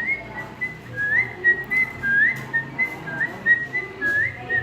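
Whistled birdsong standing in for a mockingbird singing: a quick series of clear whistled notes, many sliding briefly upward, repeated in short phrases about once a second.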